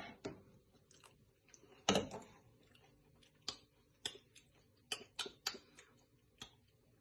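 Faint scattered mouth clicks and lip smacks from tasting a spoonful of yogurt raita, with one louder click about two seconds in.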